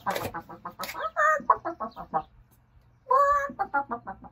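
Hen-like clucking: a quick run of short clucks, about eight a second, broken by a drawn-out squawk about a second in and a louder one near three seconds in.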